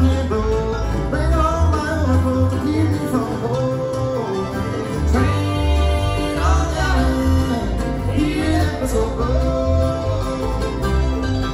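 A live bluegrass band playing at a steady pace: acoustic guitar, upright bass and banjo, with a sung vocal over them.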